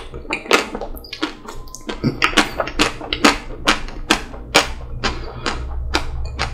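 Close-miked chewing of a chocolate-coated Magnum ice cream bar: a steady run of sharp, wet mouth clicks and lip smacks, about three a second.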